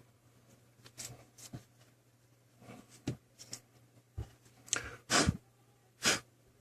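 Several short puffs of breath blown onto a phone's display to clear dust off it, each a brief rush of air. They grow stronger toward the second half, mixed with a few faint handling sounds.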